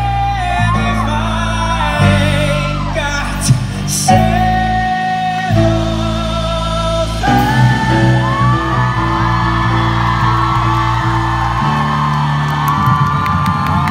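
Male tenor belting long, held notes with vibrato into a handheld microphone over a live band of acoustic guitar and electric bass, building to the final climax of the song. Crowd whoops and cheering start to come in near the end.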